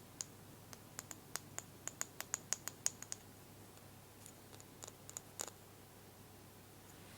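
Small wooden toy puzzle pieces clicking and tapping as they are handled: a quick run of light clicks for about three seconds, then a few scattered ones.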